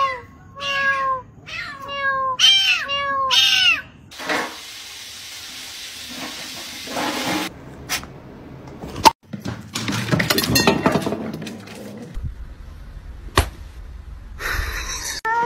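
A black-and-white cat meowing over and over, about two short calls a second, each call dropping in pitch at its end, for the first four seconds. After that comes a steady hiss, then scattered knocks and clattering noise with a sharp knock about nine seconds in.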